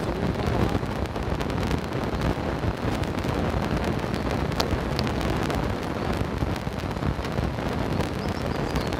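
Wind buffeting the phone's microphone: a steady, gusty rumbling noise, with two short sharp clicks about halfway through.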